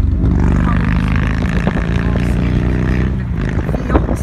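Car engine and road noise while driving at a steady speed: a steady engine hum that thins out about three seconds in, with a sharp click just before the end.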